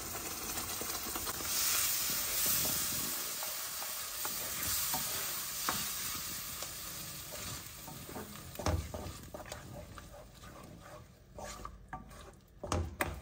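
Blended tomato paste poured into hot oil, onion and spices in a pan, sizzling, then stirred and scraped with a wooden spatula. The sizzle is loudest in the first few seconds and dies down. A few sharp knocks come in the later part, the loudest near the end.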